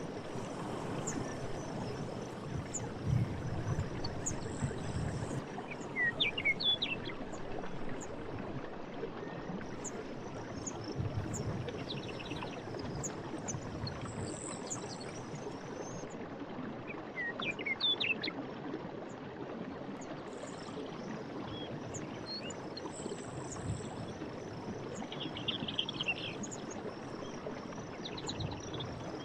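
Night forest ambience: crickets chirping in a high, steady band over a constant rushing background, with a few short bird chirps and trills scattered through.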